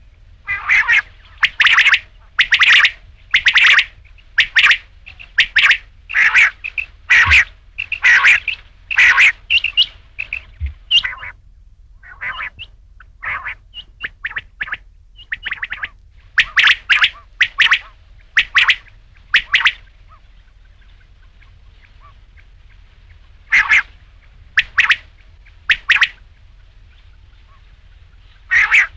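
Rain quail calling: loud, sharp calls repeated about once a second in runs, with short pauses between the runs.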